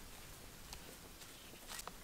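Faint footsteps on dry grass and fallen leaves, heard as a few scattered light crackles, the clearest near the end.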